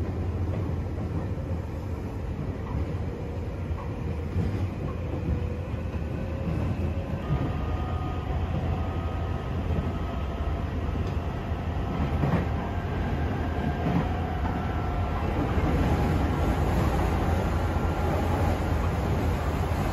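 Electric train running, heard inside the carriage: a steady low rumble of wheels on track, with a faint whine that climbs slowly in pitch through the second half.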